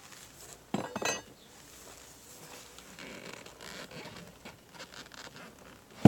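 Beekeeping equipment being handled: a brief scraping, clinking rattle about a second in, and one sharp knock near the end.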